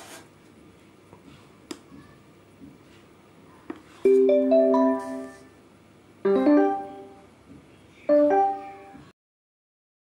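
A few faint clicks of buttons being pressed on an LG PH1 portable Bluetooth speaker, then piano chords played through the speaker at half volume: three chords about two seconds apart, each ringing and fading. The sound cuts off suddenly near the end.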